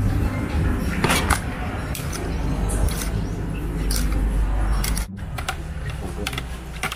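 Metal spoon and fork clinking and scraping against a ceramic bowl while tossing and scooping cucumber pieces, a sharp clink every second or so. A steady low rumble runs underneath and cuts off suddenly about five seconds in.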